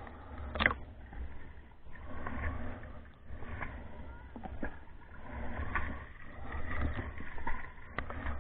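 Water sloshing and gurgling around a waterproof camera as it dips under and breaks the surface, with a muffled underwater rumble and a couple of sharp clicks, one under a second in and one near the end.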